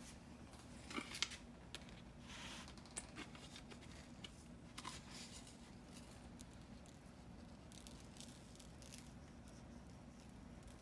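Faint handling sounds as a glass jar of kosher salt is picked up and salt is sprinkled by hand onto a raw steak: a few light clicks and soft rustles, over a faint steady hum.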